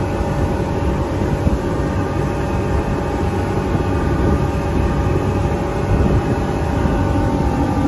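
Twin Suzuki outboard engines running steadily at high cruise, near 5,800 rpm, on a boat under way: an even drone with a few held tones above it.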